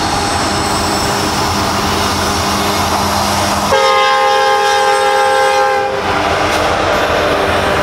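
Norfolk Southern freight train led by an EMD SD70M locomotive approaching and passing, diesel engines running under a steady rumble of wheels on rail. The tail of a horn blast fades at the start, and the lead locomotive's air horn sounds one loud chord from about four seconds in until about six seconds. Wheel clatter follows.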